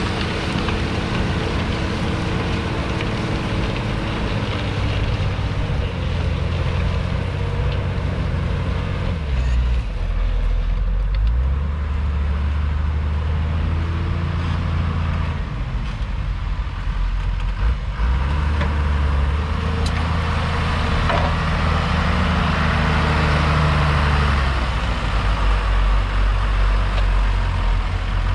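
John Deere 3650's 5.9-litre six-cylinder diesel running under load as it pulls a five-furrow reversible plough through the soil. Its low note shifts several times as the load changes.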